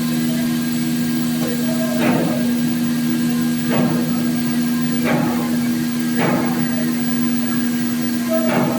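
CNC plate sawing and milling machine running with a steady hum, with five short knocks at irregular intervals of about one to two seconds.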